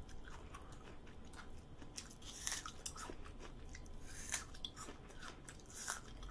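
A person biting and chewing a mouthful of food close to a microphone: soft wet chewing with crisp little crunches now and then.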